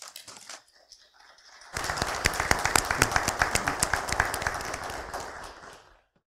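Congregation applauding: dense clapping starts suddenly about two seconds in, then tapers off and stops near the end.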